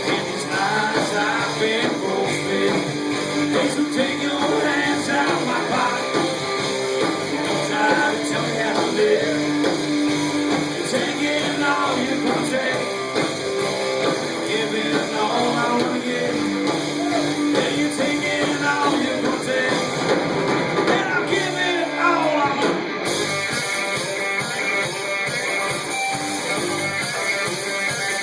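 Rock band playing a guitar-driven song with singing.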